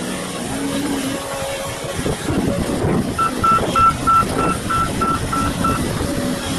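Volvo hydraulic excavator's diesel engine running under load with a steady drone. About three seconds in, a warning beeper sounds about nine times, roughly three beeps a second, then stops.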